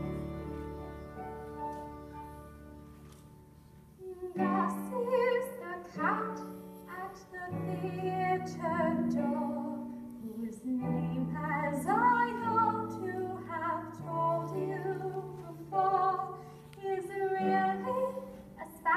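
A held chord from a student pit orchestra fades away, then about four seconds in a solo singer begins a slow melody, notes held with vibrato, over the pit orchestra's accompaniment.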